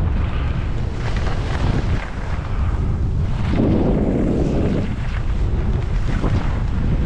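Wind buffeting a head-mounted GoPro's microphone during a downhill ski run: a steady, heavy low rumble and rush, with a louder, rougher patch about three and a half seconds in that lasts about a second.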